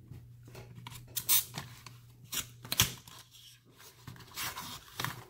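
A knife cutting into and handling the padlock's packaging: scattered short scrapes, snips and clicks.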